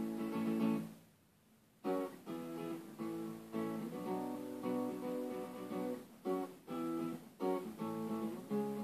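Acoustic guitar being played: a chord rings for about a second, then after a brief pause the playing resumes with a steady run of chords and single notes, broken by a few short gaps.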